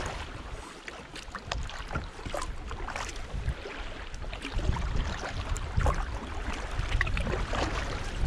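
Kayak paddles dipping and splashing in creek water, with scattered drips and strokes. A low rumble joins about halfway through.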